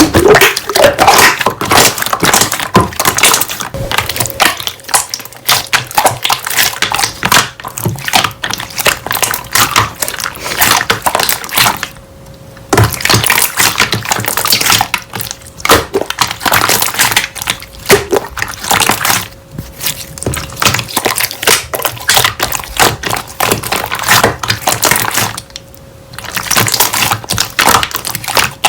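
Slime being squished and pressed by hand: a dense run of crackling clicks and sticky pops, broken by two short pauses, about twelve seconds in and near the end.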